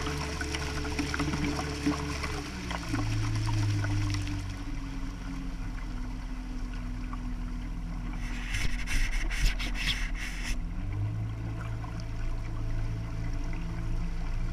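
A motorboat's engine running with water rushing along the hull; the engine note drops about two and a half seconds in and rises again near the end. From about eight to ten seconds in, something rubs and scratches against the camera housing as it covers the lens.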